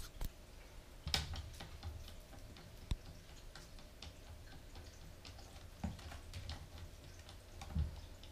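Bengal kitten playing at a sisal-rope scratching post: scattered light clicks and scratches of its claws and paws on the post, mat and tile floor, with a few louder knocks, about a second in, near three seconds, near six and near the end.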